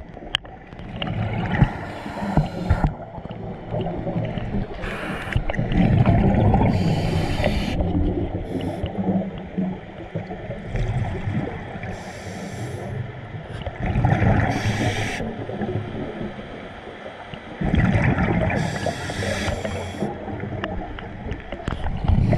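A scuba diver breathing underwater through the breathing apparatus: short hissing breaths every few seconds, with bubbling and gurgling in between.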